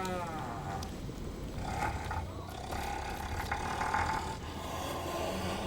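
Dinosaur vocalization sound effect: a long pitched roaring call held for about three seconds over a low rumbling background, with the tail of an earlier call at the very start.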